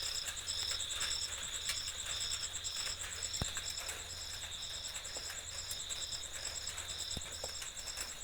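Crickets chirping: one high call pulses about twice a second over a steady insect trill, with a faint low hum underneath.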